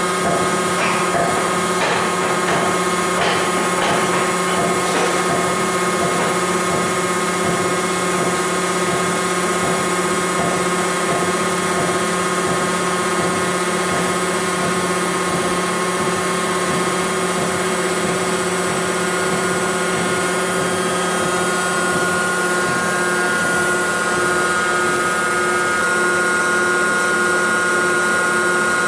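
Tensile testing machine running during a pull test on a 36 mm rebar coupler: a steady mechanical hum with several held tones that does not change.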